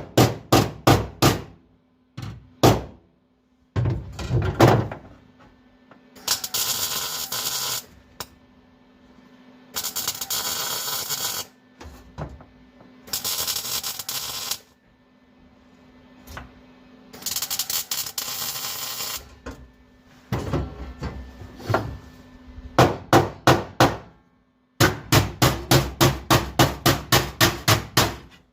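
Hammer blows on sheet steel, bending a floor-pan patch down to fit the body: quick runs of sharp metallic strikes at the start and again near the end. In between come four crackling welding bursts of a second and a half to two seconds each, tack welds on the patch.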